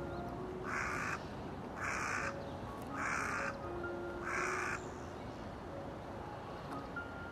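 A crow cawing four times, harsh calls about a second apart, over soft background music of sustained notes.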